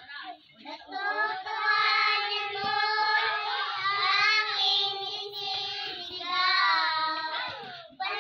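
A group of young girls singing a song together, unaccompanied, in long held notes. The singing starts just under a second in and breaks off just before the end.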